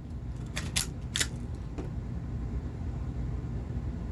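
Four small, sharp clicks within the first two seconds, then only a steady low background hum.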